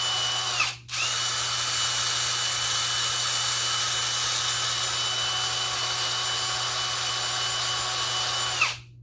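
Electric drill spinning a cleaning attachment against a tractor battery's corroded positive terminal, running with a steady high whine. It stops briefly just under a second in, starts again, and winds down with a falling pitch near the end.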